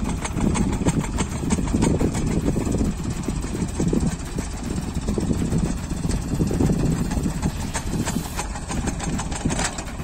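Tractor engine running to drive a PTO-mounted earth auger boring a pile hole into soil, with a dense clatter throughout.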